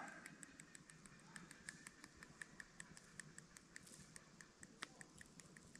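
Grass-fed Scotch fillet steak sizzling faintly in a frying pan: a steady stream of small irregular crackles and pops.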